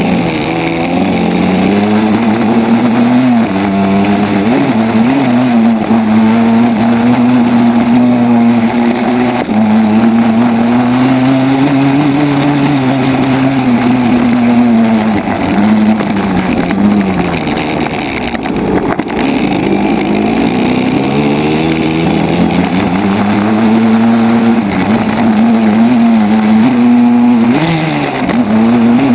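Dirt bike engine heard from on board, its revs rising and falling over and over as the throttle is opened and closed. The revs drop off for a few seconds a little past the middle and again shortly before the end.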